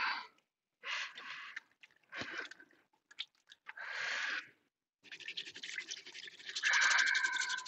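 Hands being washed at a small sink: several short scrubbing bursts as soapy hands rub together, then the tap turned on about five seconds in, water running and splashing over the hands with a low steady hum underneath.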